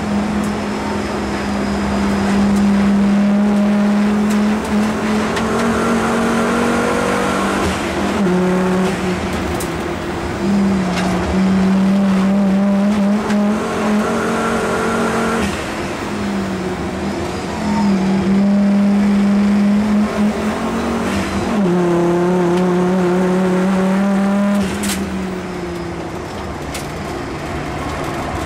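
Volvo 850 race car's five-cylinder engine heard from inside the cabin, running hard under load on track. The steady engine note breaks off and drops again and again as the driver shifts gears and lifts for corners.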